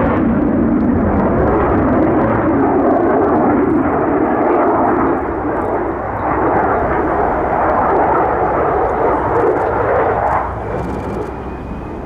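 Jet noise from an F/A-18C Hornet's twin turbofan engines in flight: a loud, wavering rumble that drops off noticeably about ten seconds in.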